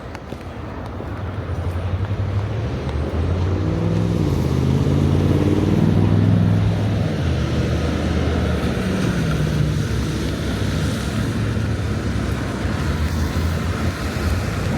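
A motor vehicle's engine passing by: it grows louder over the first few seconds, is loudest about six seconds in, with its pitch shifting, then eases off into a steady background hum of traffic.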